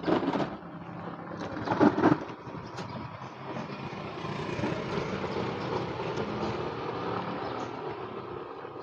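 A passing road vehicle: a steady engine-and-tyre noise swells over several seconds and fades near the end. A couple of loud thumps come in the first two seconds.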